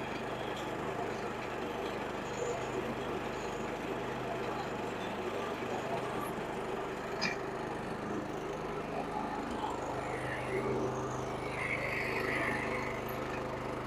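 Small gasoline lawn mower engine running steadily under mowing load, with a single sharp tick about halfway through.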